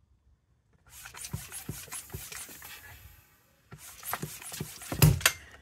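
Broken hand tyre pump, with its end removed, being worked to force air into a clutch slave cylinder, rasping and clicking in two rough stretches with a sharp knock about five seconds in. This is the pump giving up completely.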